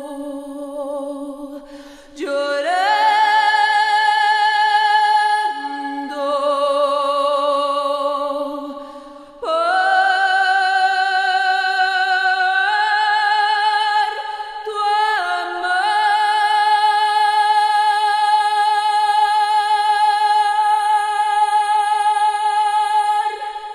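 A woman singing unaccompanied, holding long notes with vibrato that step from pitch to pitch; the final note is held for about eight seconds before it fades out near the end.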